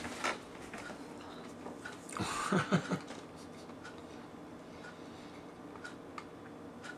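A man's short vocal sound about two seconds in, three quick pulses, with a few faint clicks of handling around it.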